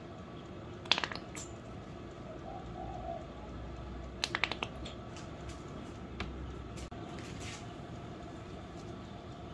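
Sharp clicks and squirts from a plastic squeeze bottle being squeezed to pipe sauce over a pizza base: one about a second in, a quick cluster about four seconds in, and a few fainter ones after, over a steady room hum. A short wavering coo, like a dove's, is heard faintly in between.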